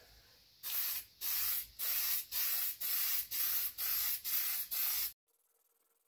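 Aerosol can of copper gasket spray hissing in about nine short bursts, roughly two a second, as a light coat goes onto a metal head gasket. The bursts cut off abruptly near the end.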